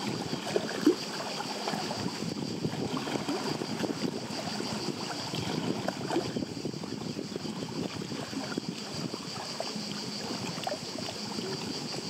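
Small lake waves lapping and splashing against the shore in a steady, irregular wash, with one short louder slap just under a second in.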